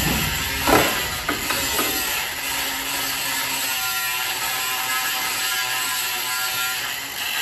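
Angle grinder cutting a roof tile, a steady hissing grind, with a few sharp metal knocks around a second in. Background music plays underneath.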